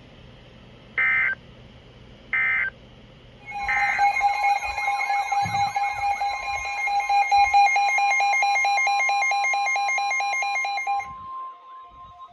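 Emergency alert tones: two short digital data beeps, then from about three and a half seconds in a loud steady two-pitch attention tone layered with warbling, beeping alarm tones. About eleven seconds in it drops to a fainter single steady tone.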